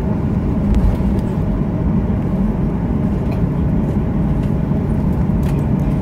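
Steady cabin noise inside a Boeing 737-800 taxiing, its CFM56 engines at low thrust giving a constant low hum over the rumble of the wheels rolling, with a few faint ticks and rattles.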